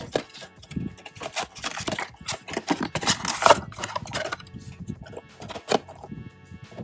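Packaging being handled as a trading-card blaster box is opened and its foil packs taken out: irregular rustling, crinkling and tapping, busiest in the first four seconds, with one sharp crackle near the end.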